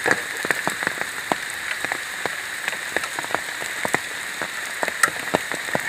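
Rain falling, with many irregular close drop hits pattering on surfaces over a steady hiss of rain.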